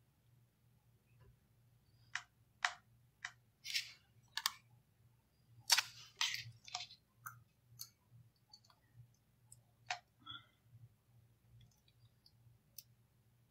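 Hands handling a small object close to the phone's microphone: a run of irregular sharp clicks and taps, most of them between about two and seven seconds in, then a few scattered ones, over a faint steady hum.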